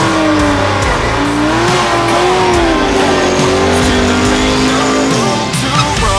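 Drag cars doing burnouts: the engines are held at high revs, their pitch wavering up and down, while the rear tyres spin and smoke. The revs drop off near the end.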